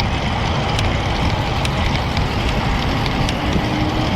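Steady wind noise buffeting an action camera's microphone while riding a road bicycle, with tyre and road noise under it.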